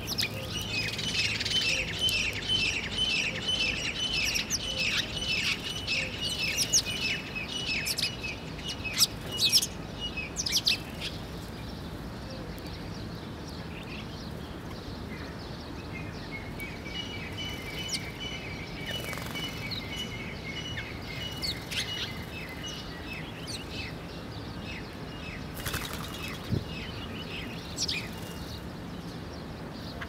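House sparrows chirping in quick repeated series, busiest for the first ten seconds or so and thinner afterwards, with a few short sharp flutters and clicks in between.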